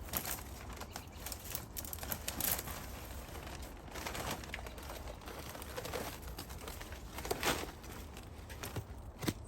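Rustling and crinkling with scattered light knocks and clicks, from garden debris and gear being handled.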